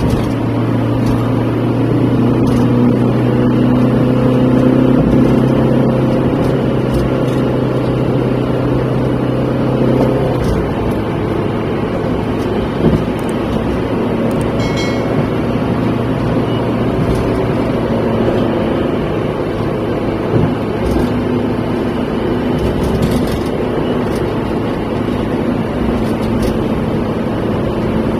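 A car's engine hum and tyre and road noise, heard from inside the cabin while it drives at road speed. The engine note changes about ten seconds in.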